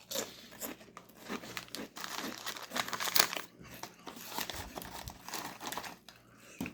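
Plastic snack-wrapper packet crinkling irregularly as it is handled.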